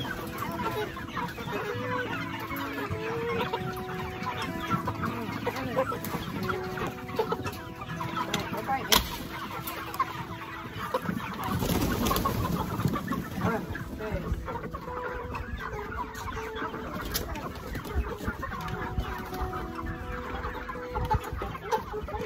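A flock of chickens clucking over background music with held notes. A sharp click and a short louder rustle come near the middle.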